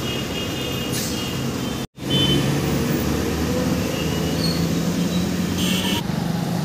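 Tata Starbus city bus engine running at a stop, with road traffic around it. The sound breaks off sharply about two seconds in, then comes back louder with a slowly rising engine note.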